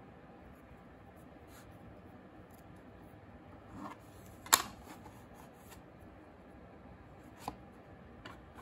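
Small handling sounds of clay work: a soft rub, then a sharp click about halfway through as the sculpting tool is set down on the plastic tray, with a lighter click later on.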